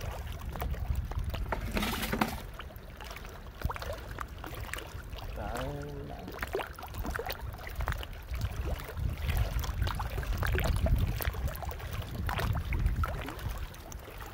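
Wind rumbling on the microphone over shallow seawater sloshing, with scattered clicks and scrapes of a hand tool knocking and prying at oyster shells. A brief pitched sound cuts in a little before the middle.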